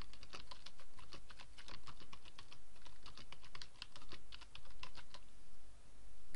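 Typing on a computer keyboard: a quick, uneven run of key clicks that thins out and stops about five seconds in, over a steady low hum.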